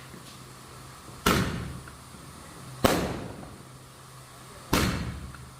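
Three firecracker bangs, each sharp and dying away over about a second, spaced roughly one and a half to two seconds apart.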